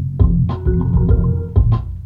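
Instrumental beat playing: heavy bass notes with sharp drum hits and a sustained melodic line over them.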